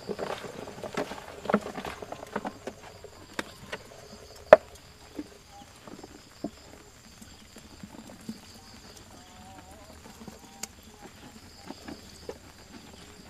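Ingredients being stirred by hand in a mixing bowl: a run of knocks and scrapes in the first few seconds, then scattered clicks, with one sharp knock about four and a half seconds in.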